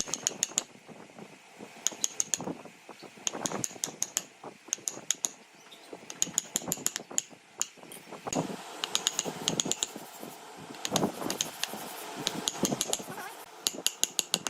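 Quick runs of sharp metallic taps, three to six in a row, coming again every second or two, with a few duller knocks between them.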